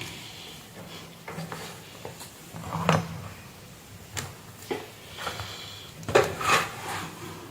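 Knocks and clicks from an opened power adapter and its test leads being handled on a workbench, the sharpest about three seconds in and a cluster near the end, over a faint steady low hum.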